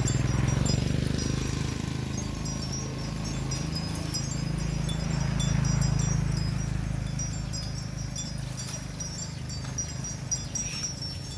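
Outdoor ambience: many short, high, tinkling chirps scattered throughout over a low rumble that swells near the start and again about six seconds in.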